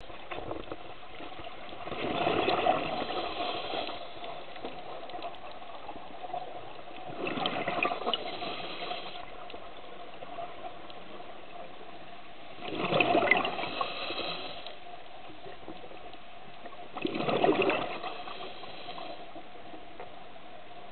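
Scuba diver's exhaled breath bubbling out of the regulator, heard underwater: four bubbly bursts about five seconds apart, each lasting a second or two. A faint steady hum runs underneath.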